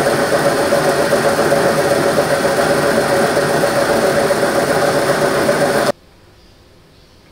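Metal lathe running with the turning tool cutting a taper on the metal workpiece: a steady mechanical whirr with a steady tone running through it. It cuts off abruptly about six seconds in, leaving only faint hiss.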